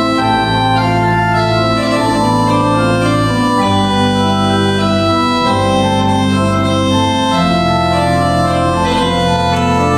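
Organ playing slow music: long sustained chords over a held bass, with the notes changing about once a second.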